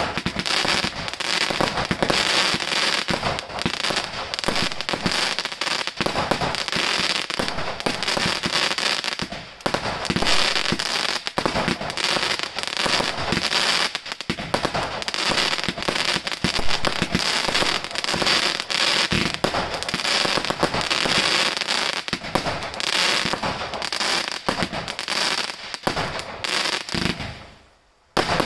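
Two Black Cat Lawman 25-shot Roman candle cakes firing together: a rapid, unbroken run of shots with crackling stars. It stops and dies away about a second before the end.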